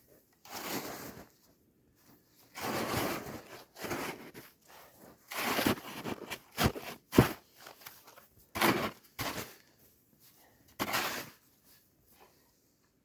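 Footsteps crunching into deep snow: about eight slow, irregular steps, the sharpest about seven seconds in, as the walker tests whether the snow gives way over a hidden pit.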